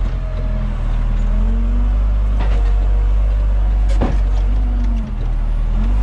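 John Deere 3200 telehandler's diesel engine running, heard inside the cab, with a fainter whine that rises and falls a few times. A knock sounds about four seconds in, with a lighter one before it.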